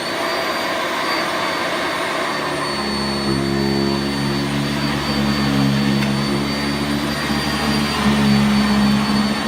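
Sanitaire SC679J commercial upright vacuum cleaner running at full speed, a steady high whine over rushing air. About two and a half seconds in, a lower hum joins in and holds.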